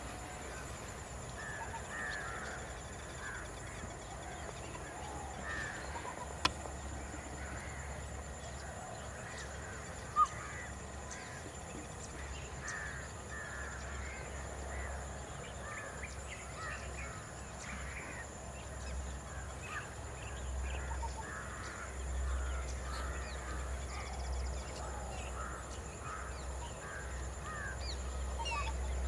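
Wild birds calling all around in many short, scattered chirps, over a steady low hum. Two sharp clicks stand out, about six and ten seconds in.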